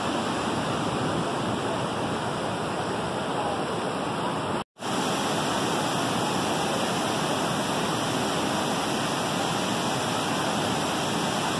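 Waterfall and river rapids rushing steadily, an even wash of falling water that breaks off for an instant about five seconds in.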